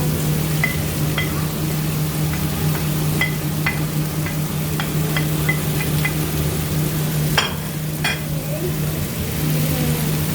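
Sausages and vegetables frying in a pan while a utensil stirs them, with a run of light clinks against the pan and two louder knocks about seven and eight seconds in. A steady low hum runs underneath.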